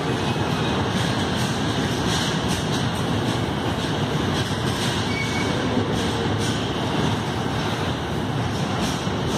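A GBRf freight train of covered wagons passes through the station: a steady, loud rumble and clatter of wagon wheels on the rails with recurring clicks, echoing off the enclosed platform.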